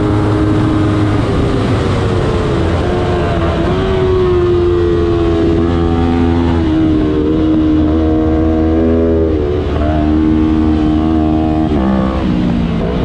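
A 300cc-class road-racing motorcycle engine running hard at high revs. Its pitch climbs, then drops sharply and climbs again several times as it shifts and slows for corners.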